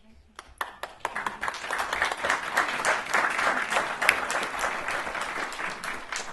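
A roomful of guests applauding. The clapping starts about half a second in, builds quickly to a steady patter and thins out near the end.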